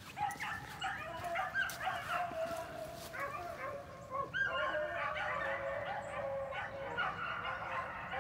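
A pack of beagles baying on a rabbit's track, several hound voices overlapping in a continuous chorus that breaks out all at once: the hounds are running the rabbit hard.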